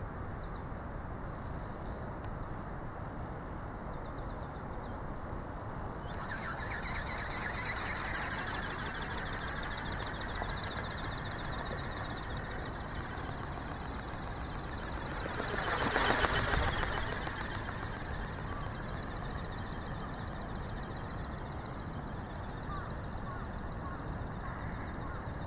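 An ornithopter's small brushless electric motor and reduction gears whine high-pitched with a rapid pulsing as it flies. The whine comes in about six seconds in and is loudest as the ornithopter passes close, about two-thirds of the way through. It then fades away.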